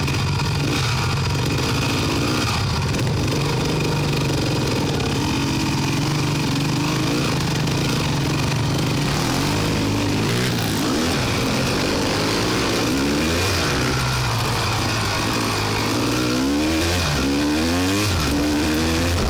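Quad bike (ATV) engine heard from on board while riding a rough dirt trail: steady at first, then revving up and down over and over from about halfway, with several quick rising revs near the end.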